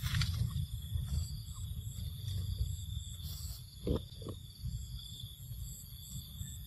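Outdoor forest ambience: a steady low rumble of wind on the microphone under a steady, high drone of several insects. Two short sounds come about four seconds in.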